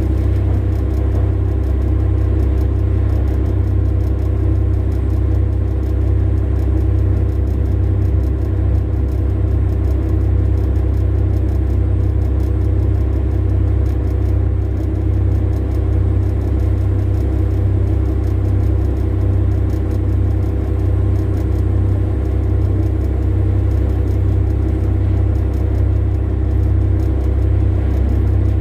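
Large diesel engines of Komatsu mining machines, a PC2000 hydraulic excavator and an HD785-7 haul truck, running with a steady low rumble and a few even hums above it.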